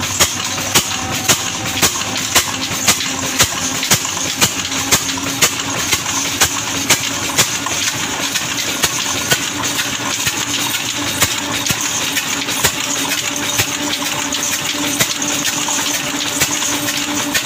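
Old Ruston Hornsby horizontal diesel engine running steadily, driving belts, pulleys and a grain mill: a continuous mechanical clatter with a sharp, regular tick about twice a second.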